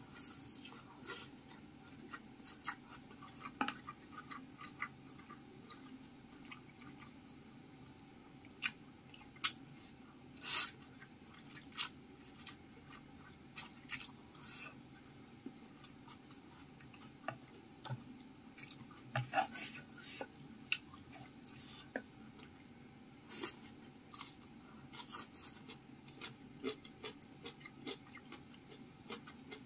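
Close-up mouth sounds of someone eating fried instant noodles and sliced sausage: irregular wet chewing, lip smacks and clicks, over a faint steady hum.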